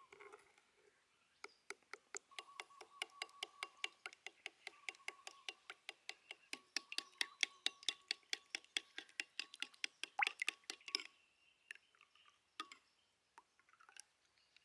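Metal spoon clinking against a ceramic bowl while stirring a sauce, about five clinks a second. The stirring stops about eleven seconds in, leaving a few scattered taps.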